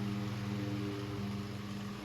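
Antique Robbins & Myers 12-inch table fan running, its motor giving a steady hum along with the rush of air from the blades.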